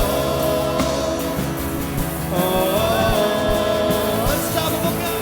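Live worship band playing a contemporary Christian song, with drums and sustained instruments under a held sung or vocal-like note that bends upward midway.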